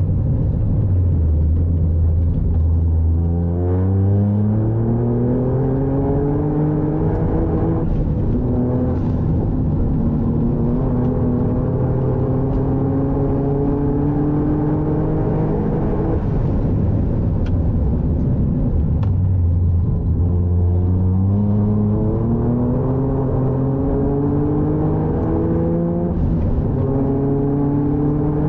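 Toyota GR Yaris's turbocharged three-cylinder engine heard from inside the cabin under acceleration: a low engine note for the first few seconds, then climbing steadily in pitch for about twelve seconds, falling back around the middle as the car slows, and climbing again near the end.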